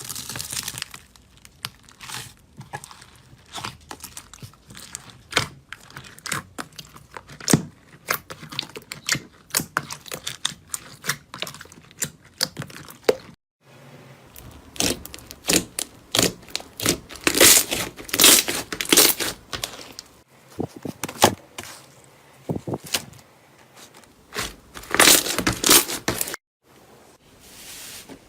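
Crisp crackling, crunching and tearing sounds of a crunchy ASMR slime-type material being squeezed, pressed and broken by hand, in quick irregular snaps. The sound drops out briefly about halfway through and again near the end, as one clip gives way to the next.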